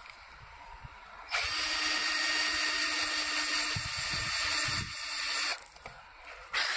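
Power drill running a homemade countersink bit into a wooden board, cutting a countersink. The drill runs steadily for about four seconds from a second in, then gives one short burst near the end.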